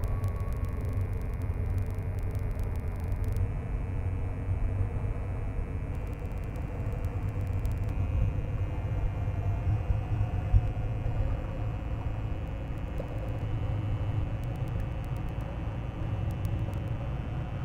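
Steady low outdoor rumble with a faint hiss over it, unchanging throughout.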